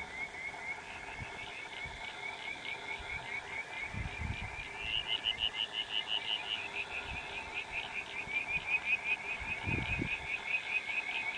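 Frogs calling in a chorus of rapid, pulsing high-pitched trills, with two brief low rumbles, about four seconds in and near the end.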